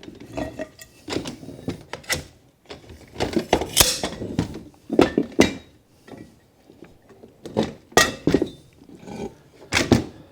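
Aluminum frame poles clinking and knocking against each other and their connectors as they are handled and fitted together, in irregular sharp strikes, some with a short metallic ring.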